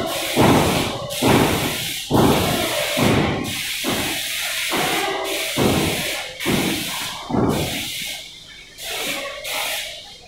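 Airless paint sprayer spraying primer through a long extension wand: a steady hiss from the spray tip, with the pump thumping about once a second. The spray fades and cuts off near the end.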